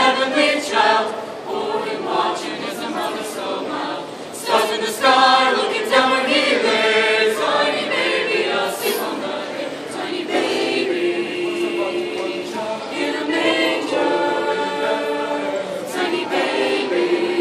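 Mixed choir of young men's and women's voices singing in parts under a conductor, with moving sung phrases giving way to longer held chords about ten seconds in.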